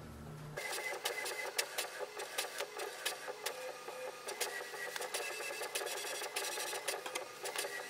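HP Envy Photo 6255 inkjet printer printing its cartridge alignment page. The mechanism runs with a steady whir and many quick clicks, starting about half a second in.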